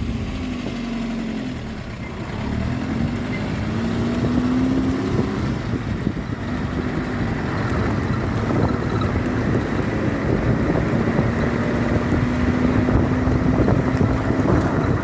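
VAZ 2110 on the move: steady engine and road noise, the engine note rising a few seconds in and then holding steady.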